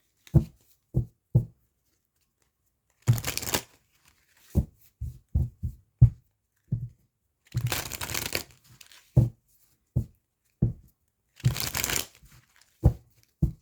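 A tarot deck being shuffled: three hissing bursts of cards riffling or sliding against each other, about half a second to a second each, with about a dozen short soft thumps in between as the cards are handled.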